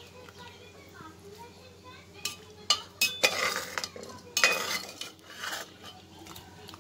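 Slotted metal skimmer clinking and scraping against an aluminium pressure cooker while it scoops boiled jackfruit pieces through their cooking water. A few sharp clinks and splashy bursts of liquid come through the middle.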